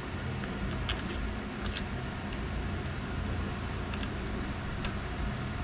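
A few faint, light clicks of small metal parts being handled, as the screws are fitted into the actuator motor's end cap, over a steady low background hum.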